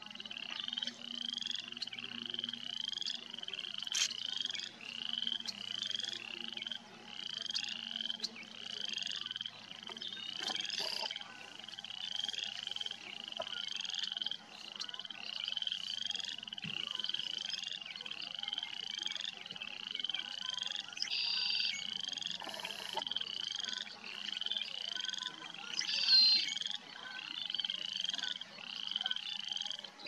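Frogs calling in a wetland: a steady run of short, rising, creaky calls repeated about twice a second, with a few louder calls overlapping now and then.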